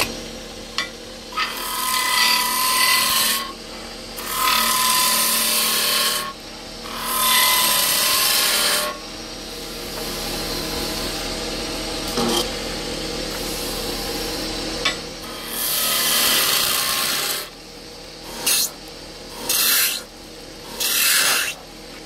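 Wood lathe running steadily while a turning tool cuts into the spinning wood in repeated passes of a second or two. Some passes carry a thin whine, and there is a quieter stretch of plain motor running in the middle and a few short cuts near the end.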